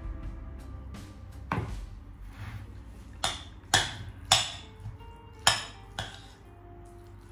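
A spoon clinking and scraping against a ceramic mixing bowl while a rice salad is stirred, about seven sharp knocks at irregular intervals, the loudest in the middle.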